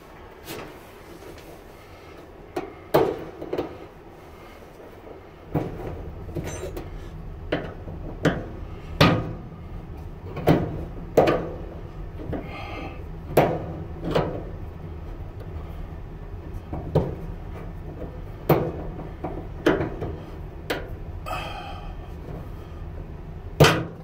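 Sharp metal clicks and taps, about twenty spread irregularly, as a tri-ring retaining clip is worked onto a clothes dryer's drum roller shaft with fingers and a screwdriver.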